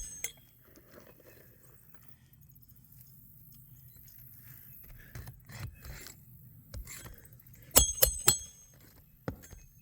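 Roofer's hatchet driving roofing nails into an asphalt shingle: three sharp ringing metal strikes in quick succession near the end, after a stretch of soft handling clicks.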